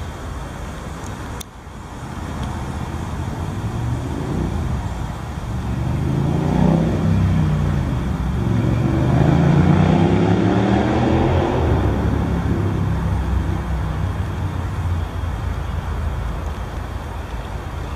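City road traffic: a steady rumble with a motor vehicle passing about halfway through, its engine note sliding down and then up as it gets loudest. A single sharp click comes about a second and a half in.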